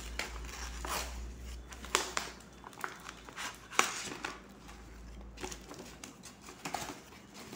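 Paper envelope rustling and crinkling as a plastic page of cardboard coin holders is slid out of it and handled, with a handful of sharp light clicks and taps.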